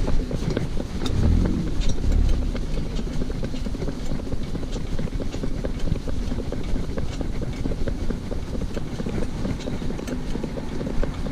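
A Shetland pony's hooves clopping on tarmac while the pony cart's wheels rumble and its harness rattles, with wind buffeting the microphone. A car passes close by about a second in.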